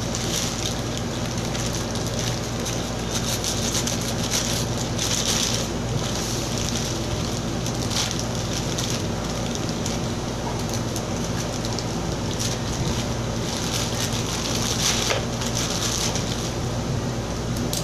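Plastic courier mailer crinkling and rustling as it is slit with a utility knife and torn open, the rustling coming and going, over a steady low hum.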